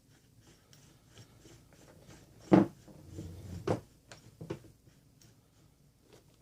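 Roller skate and toe stop parts being handled: a few sharp knocks, the loudest about two and a half seconds in and another about a second later, with light rubbing between them.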